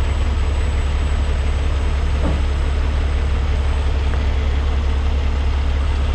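Peterbilt semi truck's diesel engine idling with a steady, even low rumble.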